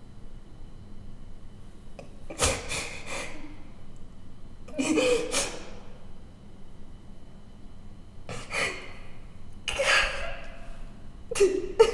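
A woman sobbing: five gasping, shuddering sob-breaths, irregularly spaced a second or more apart.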